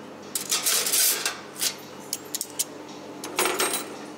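Plates and cutlery clattering in a series of short, sharp clinks and knocks, bunched into two spells, over a steady low hum.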